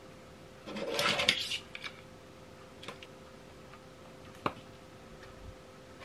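Hands handling the hard plastic body of a Kärcher WV2 window vacuum and its charger cable: a short burst of rubbing and scuffing about a second in, then a few light clicks, the sharpest a little after four seconds.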